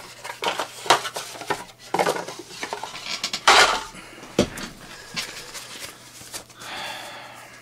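Cardboard box and packaging being handled: a run of small taps, clicks and scrapes, with a louder rustling scrape about three and a half seconds in and a softer rustle near the end.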